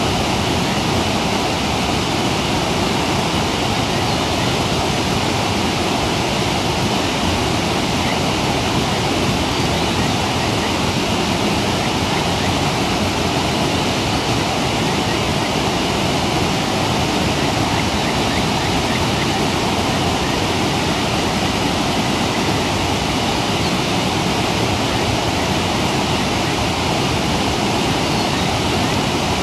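Mountain stream water rushing steadily over rocks below waterfalls, an even, unbroken wash of noise.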